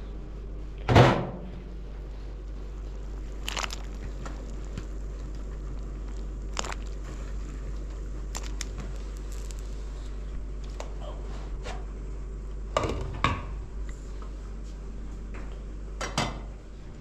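A few separate knocks and clatters, the loudest about a second in and a cluster near the end, over a steady low rumble.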